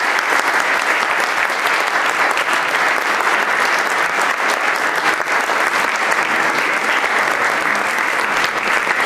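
Lecture audience applauding: steady, sustained clapping of many hands in a hall.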